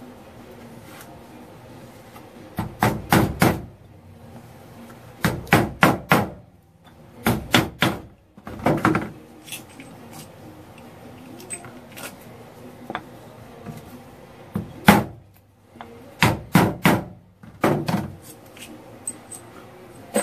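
Hammering with a wooden block on the CV joint of a Jeep Wrangler JK front driveshaft as it is taken apart: quick runs of three to five sharp knocks with pauses between, and a few single blows.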